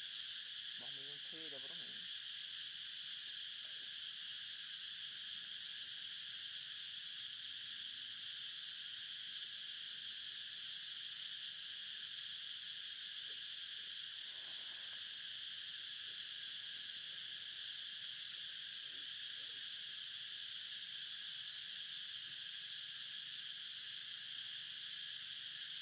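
Steady insect chorus in forest: a continuous high buzzing hiss that holds one level throughout. A couple of faint, brief pitched calls or voices sit far in the background.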